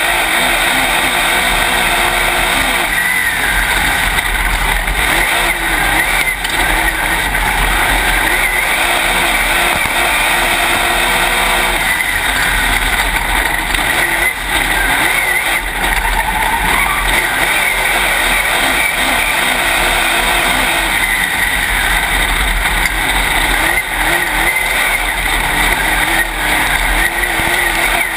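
Dirt late model race car's V8 engine running hard at racing speed, heard loud from inside the cockpit, its pitch rising and falling as the driver goes on and off the throttle through the turns.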